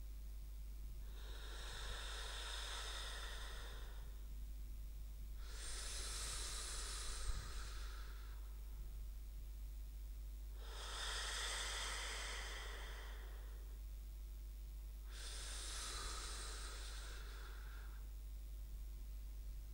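A sleep-breathing sound effect, dubbed over for comedy: four slow, airy breaths, each lasting about two seconds, with a pause of about two seconds between them, over a faint steady low hum.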